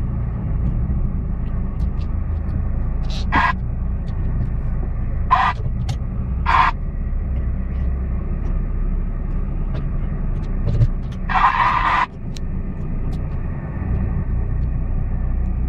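Off-road vehicle's engine and tyres on a rough dirt trail, a steady low rumble heard from inside the cabin. A few brief higher-pitched bursts cut in, the longest near the end.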